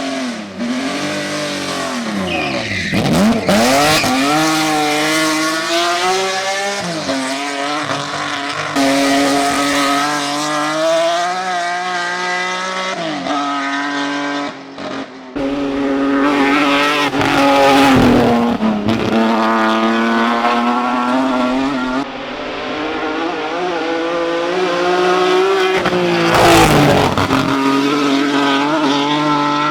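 BMW E46 Compact race car engine revving hard, its pitch climbing and then falling back at each gear change several times. Twice, once near the start and once near the end, the pitch swoops as the car passes close by.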